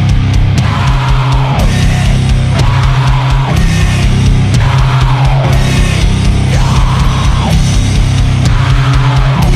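Sludge metal: heavily distorted guitar and bass play a slow, repeating riff over drums and cymbals. A phrase slides down in pitch about every two seconds.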